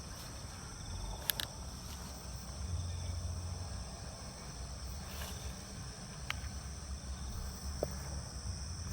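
Steady night chorus of crickets and other insects, with a low rumble underneath and a few faint clicks, the first about a second in.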